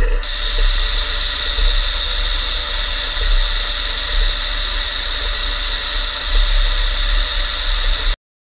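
Hypertherm HPR260XD plasma cutting torch cutting steel plate: the arc fires just after the start with a step up to a loud, steady, high-pitched hiss that holds for about eight seconds, then stops abruptly.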